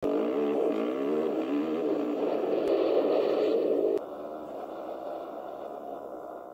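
Dirt bike engine heard from the rider's helmet, running under throttle with its pitch rising and falling. About four seconds in, it cuts abruptly to a second dirt bike, quieter, with revs still wavering.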